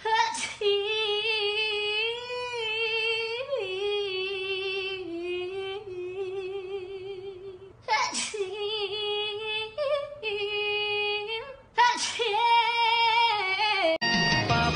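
A high female voice singing long, sustained notes with vibrato, in three long phrases with short breaks between them.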